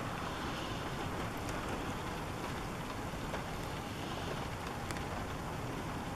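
Steady rain and wind noise, with a few faint ticks of drops scattered through it.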